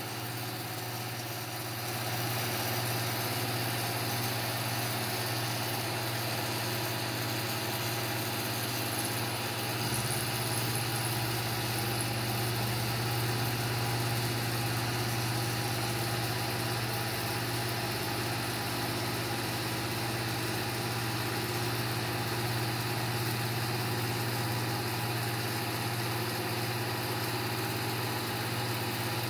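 Bridgeport milling machine running steadily with a low hum, its spindle driving the cutter through a Volstro milling head as the head is hand-cranked around to cut an arc in cast iron. The sound gets a little louder about two seconds in.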